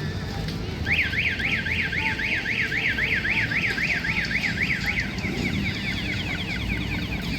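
Car alarm sounding: a rapidly repeating rising whoop, about four a second, that switches about five seconds in to a faster, fainter sweep.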